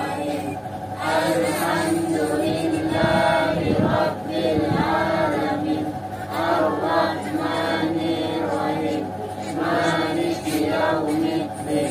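Several voices chanting together in a slow, choir-like melody over steady held tones, phrase after phrase.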